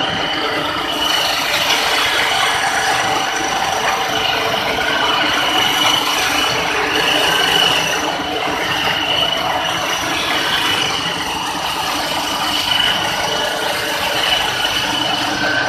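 Pulp-mill machinery running: electric motors and slurry pumps making a steady, dense mechanical din with a few steady high tones over it.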